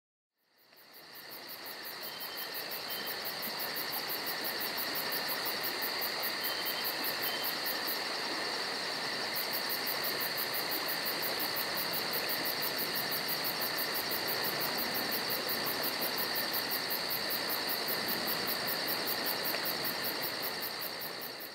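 Insect chorus, a steady high buzz with fast, even pulsing, fading in at the start and out at the end. A few short high chirps come about two and seven seconds in.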